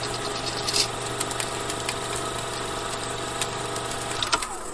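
Film projector sound effect: a steady mechanical whir with a low hum and scattered faint clicks, stopping just before the end.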